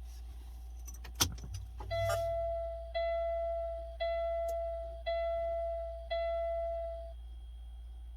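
A brief clatter of clicks, then a vehicle's warning chime dings five times, about once a second, each ding fading out.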